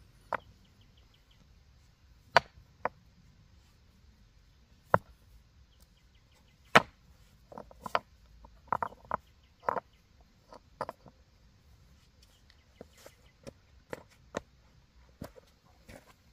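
Irregular sharp knocks or chops, like a hand tool striking, the loudest about seven seconds in, with a quick run of strikes just after and softer taps toward the end.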